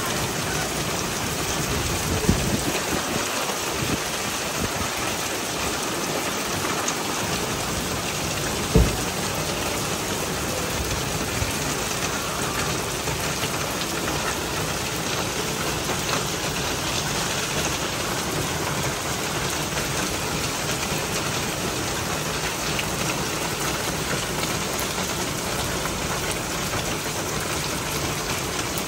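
Heavy rain falling steadily, an even hiss throughout, with a couple of brief sharp knocks, the loudest about nine seconds in.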